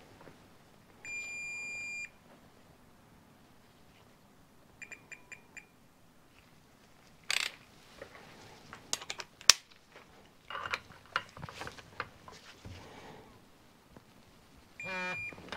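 Electronic torque wrench beeping: one long high beep about a second in, a quick run of four or five short beeps around five seconds in as it is set, then scattered clicks and knocks of the tool on the fork, and another beep near the end as the fork's banjo bolt is torqued up, signalling the set torque.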